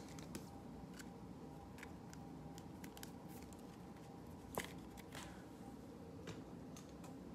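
Faint clicks and taps of trading cards being handled and set into a plastic card stand, with one sharper click about four and a half seconds in.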